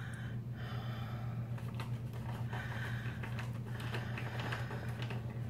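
Faint, irregular clicks and light scratchy rustles over a steady low hum.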